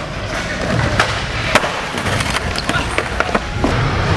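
Skateboard wheels rolling over a smooth concrete floor with a steady rumble, and a few sharp clacks of the board, the loudest about a second and a half in.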